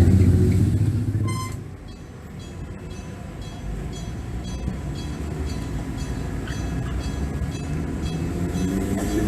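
Enoden electric-bell approach warning device ringing in rapid, even strokes, the signal that a train is approaching. A train's loud low rumble dies away in the first two seconds, and a low rumble builds again near the end.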